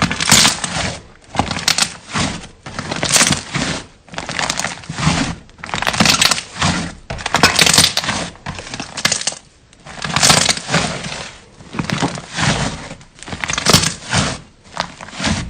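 Slime being squeezed and pressed by hand, crackling and crunching in repeated squeezes roughly once a second.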